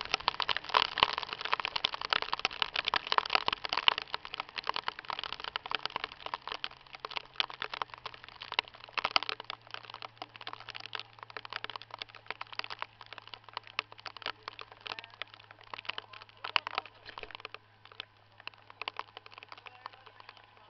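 Hail and rain pelting the boat and camera: a dense, rapid crackle of small impacts, heaviest in the first half and thinning out toward the end.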